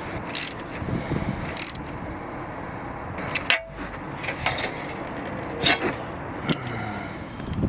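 A series of sharp clicks and knocks over a steady hiss: the ABS sensor's wiring being clipped and tied back into place on the car.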